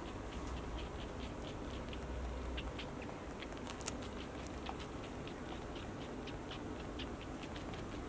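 Faint quick clicks and ticks, several a second, from a wet otter held in arms, over a steady low hum.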